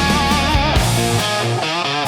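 Rock music with electric guitar, in an instrumental passage without vocals; a wavering lead guitar line plays early on, and the drums and deepest bass drop away about a second in.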